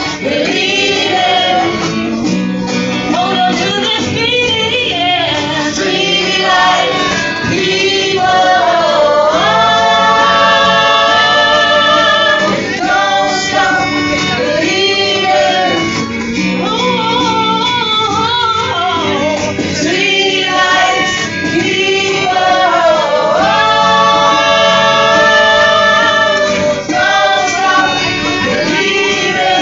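A group of men and women singing a song together live, backed by strummed acoustic guitars, with long held sung notes.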